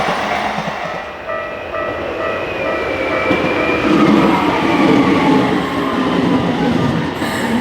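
Train passing over a level crossing: a loud, continuous rumble of wheels on the rails, with a whine that glides in pitch in the second half.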